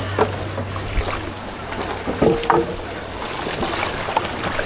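Steady rush of a swollen glacial-outburst floodwater river, with a brief shout a couple of seconds in.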